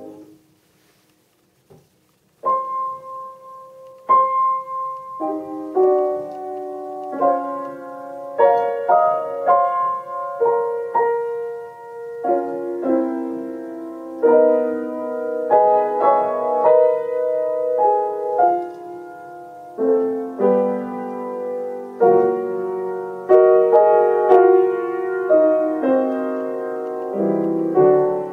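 Upright acoustic piano played solo: after a short silence, a piece starts about two and a half seconds in with a few held single notes, then moves into fuller chords and flowing melody.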